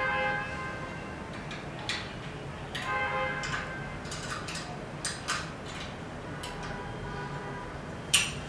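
Metal taps and clinks as the aluminium frame sections of a projection screen are fitted together at a corner; twice, at the start and about three seconds in, a knock leaves the metal ringing briefly, with scattered sharper clicks in between.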